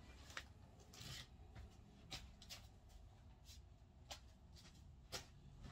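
Near silence: faint scattered clicks and rustles of a person moving about and handling things, over a low steady room hum.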